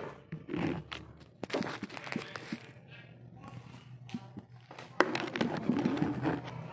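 Plastic bubble wrap rustling and crinkling as a wrapped item is handled and unwrapped, with scattered taps and knocks of handling close to the microphone; a louder stretch of rustling starts about five seconds in.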